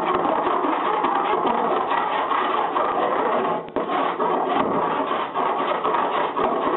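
Hand file rasping over body solder on a car body joint in quick, continuous strokes, with a short break a little after three and a half seconds. The solder files harder than lead.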